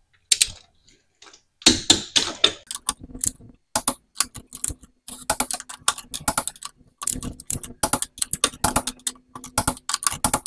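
Torque wrench ratcheting in quick runs of clicks as the wheel's lug nuts are tightened to 80 foot-pounds.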